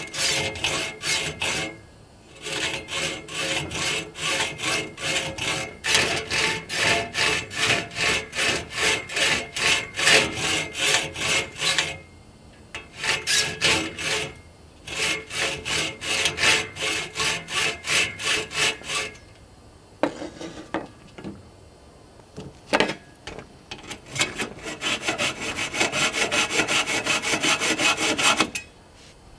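Hacksaw cutting a clamped metal extrusion rail: steady back-and-forth strokes, about two or three a second, in several runs with short pauses. During a longer pause in the middle there are a few sharp knocks.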